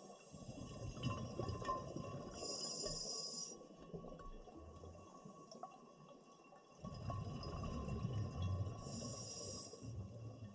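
Scuba diver breathing underwater through a regulator: two breath cycles, each a low bubbling rumble of exhaled air with a high hiss about a second long as the regulator delivers air.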